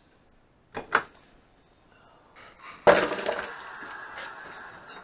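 Metal parts knocking on a workbench: two light clicks, then a loud clank about three seconds in with a rattling, ringing tail as a steel exhaust pipe is handled against the vise and tools.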